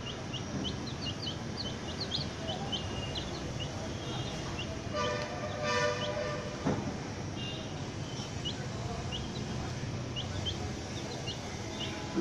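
Young chicks peeping: short high chirps, about one or two a second, over a steady background hiss. About five to six seconds in, a louder pitched sound with several overtones, then a single knock.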